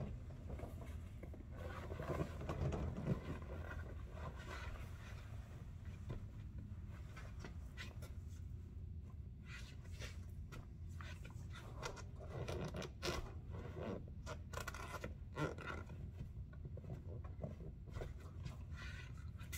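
Rubber boots scuffing and stepping on a concrete floor: scattered scrapes and light knocks as a foot is worked into a boot and the wearer shifts about, over a steady low hum.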